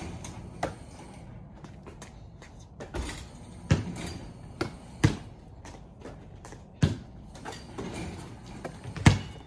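Basketballs bouncing on a concrete court and being caught: about eight sharp, irregularly spaced thuds, with two close together near the end the loudest.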